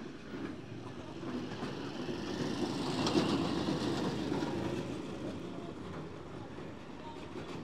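A motor tricycle's small engine rumbling as it passes close by, growing louder to a peak about three seconds in, then fading.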